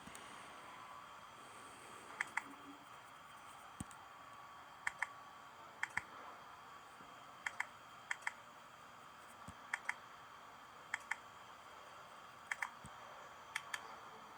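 Faint sharp clicks in close pairs, about nine pairs spaced a second or so apart, over a low steady hum.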